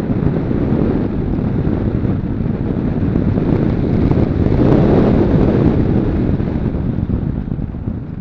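Rushing airflow buffeting the microphone of a camera mounted on a glider in flight. It swells to its loudest about four to five seconds in, as the glider dives with rising airspeed, then eases as it pulls out.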